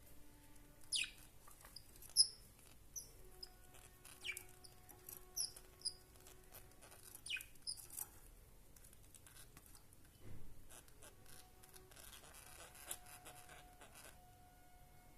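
Budgerigars chirping: short high chirps and a few sharp calls that sweep steeply down in pitch, with faint light clicking in between.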